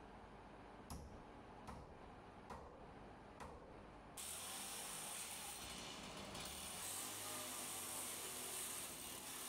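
Hammer driving nails into wooden wall framing, four blows a little under a second apart. From about four seconds in, a small cordless chainsaw runs steadily, cutting through a board.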